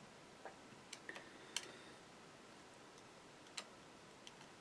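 Near silence with a handful of faint, sharp clicks: plastic model-kit fuselage halves being handled. The clearest clicks fall about a second and a half in and again near the end.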